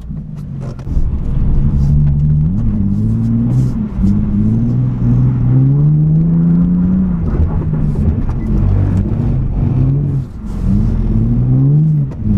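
Nissan 370Z Nismo's 3.7-litre V6, heard from inside the cabin, revving up and down repeatedly while the car drifts on a wet track. The revs fall off sharply a couple of times near the end, where the stability control, which is still active, is braking to hold the car.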